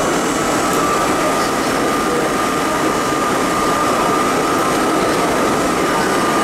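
Budd-built R32 subway car running through a tunnel: a steady rumble of wheels on rail with a steady high whine over it.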